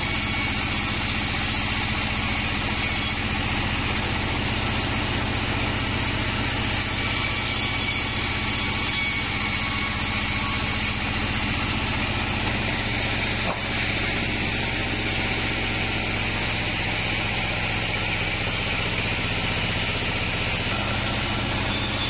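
Band sawmill running steadily, its blade sawing through a kapok (randu) log: a constant motor hum under the hiss of the blade in the wood.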